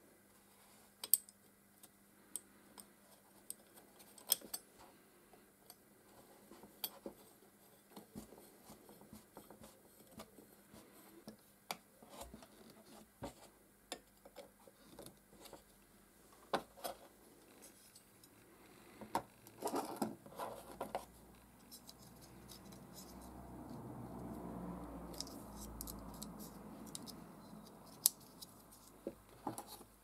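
Small metal parts of a vintage ignition coil and key switch being handled and fitted by hand on a plastic tub: scattered light clicks, ticks and scrapes, bunched together about two-thirds of the way in. A soft rush of noise swells and fades later on.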